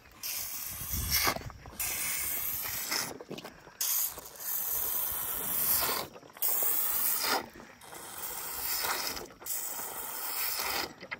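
Young elephant sucking milk from a bottle's rubber teat held in its trunk: a noisy, slightly squeaky slurping in about seven bouts of one to two seconds, each broken off by a short pause.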